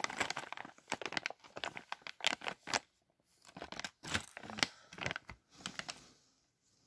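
Clear plastic zip bag crinkling and rustling as it is handled, in irregular bursts with short pauses, fading out near the end.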